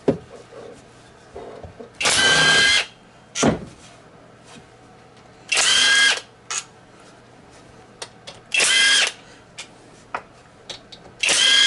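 A cordless power driver spinning out the side cover bolts on a Tillotson 212cc engine: four short whirring bursts about three seconds apart. There is a single knock between the first and second bursts.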